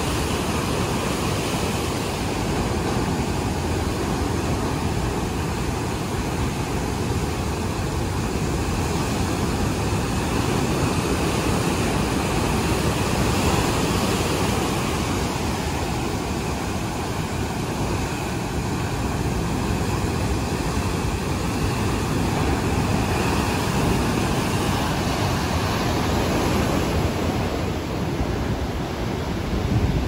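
Rough sea surf breaking over shore rocks and sand: a continuous rush of whitewater that swells and eases slowly as the waves come in.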